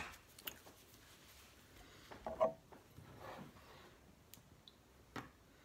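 A metal spoon scooping cherry pie filling out of an opened tin can: a few faint clicks and scrapes of the spoon against the can.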